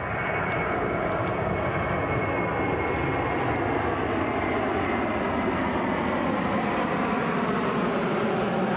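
Airplane passing overhead: a loud, steady engine noise with a faint high whine that slowly drops in pitch.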